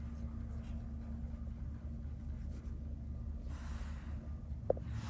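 Faint rustling of a small Chinese brush stroking across sized xuan paper, over a steady low electrical hum.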